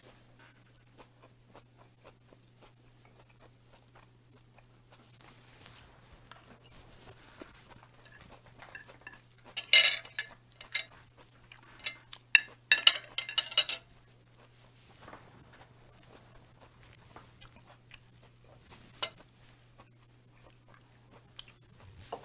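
Metal fork and knife clinking and scraping on a china plate while cutting into fried chicken. The loudest clatter comes about ten seconds in and again a couple of seconds later.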